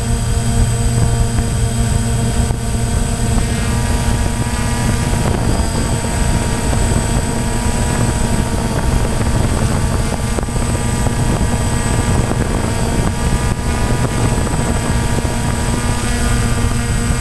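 DJI Phantom quadcopter's four electric motors and propellers buzzing steadily in flight, picked up by the camera mounted on the drone itself, with small shifts in pitch as it manoeuvres.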